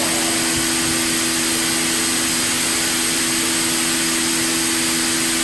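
Biesse Rover 35 CNC machining centre running steadily: a constant hiss over a steady two-note hum.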